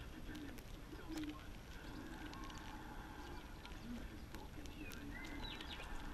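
Doves cooing with a low, wavering call and a small bird chirping briefly about five seconds in, over faint sharp clicks from a red squirrel cracking and nibbling seeds close by.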